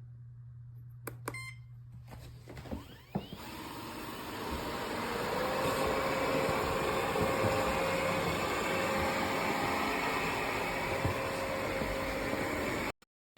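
A short electronic beep, then the Airzeen R7 robot vacuum's suction motor starts up and builds into a steady running noise with a held whine. The sound cuts off abruptly near the end.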